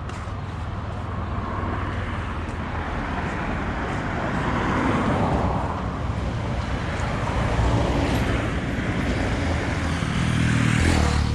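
Road traffic: vehicle engines and tyres running, swelling and fading as vehicles pass about three times.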